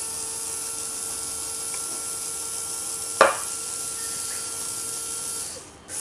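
Small LEGO Power Functions-style electric motor (LEPIN clone) running steadily under infrared remote control with a constant whine, then cutting off near the end. One sharp knock about three seconds in.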